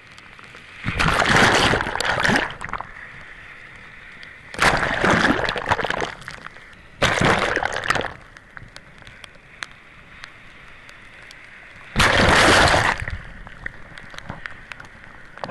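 Hurricane storm-surge waves breaking and splashing: four loud rushes of water, about a second in, near five and seven seconds, and at twelve seconds, over a steady background of surf and wind.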